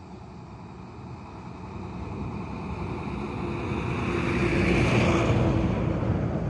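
A truck driving past on the road, its engine and tyre noise growing louder as it approaches, peaking about five seconds in, then starting to fade.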